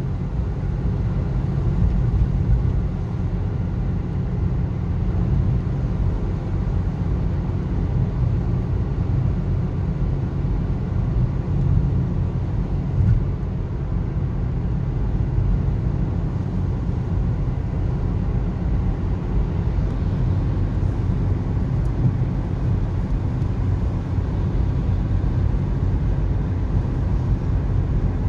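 Steady road noise inside a car cruising on a wet motorway: a continuous low rumble of tyres and engine.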